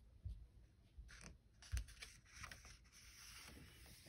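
Faint handling of a hardcover picture book as its page is turned and pressed flat: a few soft knocks, then a light paper rustle.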